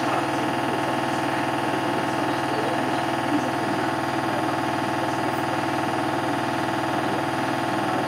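Hoover H-Wash 300 front-loading washing machine spinning its drum at high speed: a steady hum from the motor and drum that holds its pitch, with no rise or fall.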